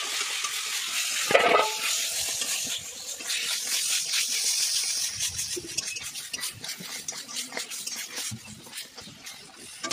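Food sizzling in hot oil in a steel kadai while a metal spatula stirs it, scraping and clinking against the pan, with one louder clatter about a second and a half in.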